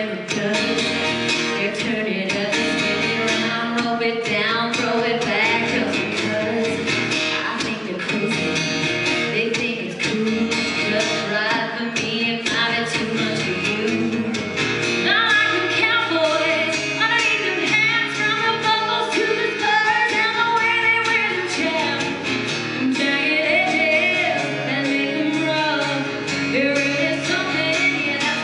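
Live country music: a woman singing into a microphone over acoustic guitar and a steady beat.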